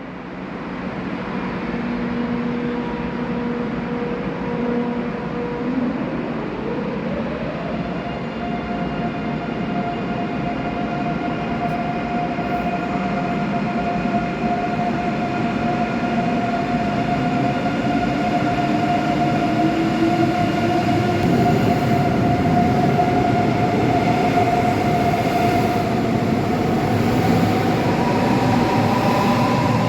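Electric train's traction motors and inverters whining, the whine stepping up in pitch several times as the train accelerates, over a steady rumble of the running train that grows slowly louder.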